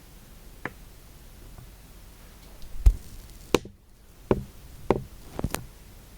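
A handful of irregular knocks and taps, about six, over quiet room noise. The loudest is a dull low thud about three seconds in, followed by four sharper knocks roughly every half second.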